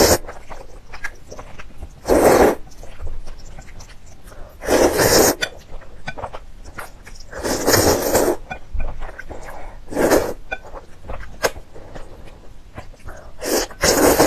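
A person loudly slurping up mouthfuls of spicy instant noodles, six slurps about every two to three seconds, with soft mouth clicks between.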